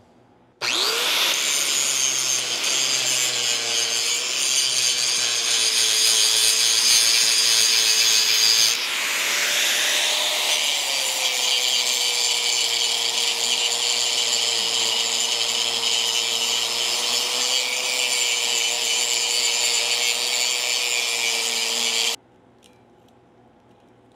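Angle grinder grinding on the steel barrel of an excavator's hydraulic cylinder, taking off old weld around a fitting hole, with a steady motor whine under the grinding. It starts about half a second in, changes briefly around nine seconds, and cuts off sharply a couple of seconds before the end.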